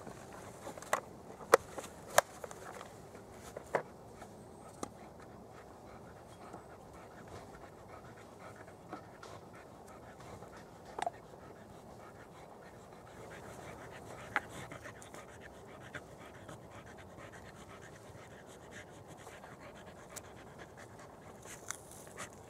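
A dog panting steadily. Over it come sharp clicks and knocks from tools and a small plastic case being handled, several in the first few seconds and a couple more later.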